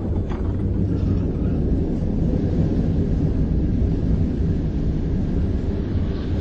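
Steady low rumble of a railway wagon rolling along the track, with a faint click shortly after the start.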